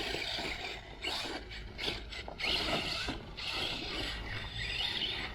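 Arrma Typhon 3S BLX RC buggy being driven: its stock brushless motor and gear drivetrain whine, rising in pitch a couple of times as it accelerates.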